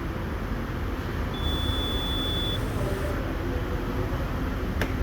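Workshop ambience with a steady low rumble of vehicles, a single high electronic beep lasting about a second, and a sharp click near the end.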